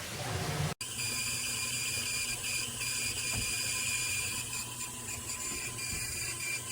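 Portable washing machine running: a steady high-pitched electric motor whine over a hiss of water. The sound cuts out for an instant under a second in, then resumes.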